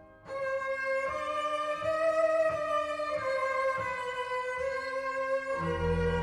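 Recorded string music played back over Elfton Vegas II loudspeakers: after a brief gap, a solo violin plays a sustained melody, and low bowed strings enter a little before the end.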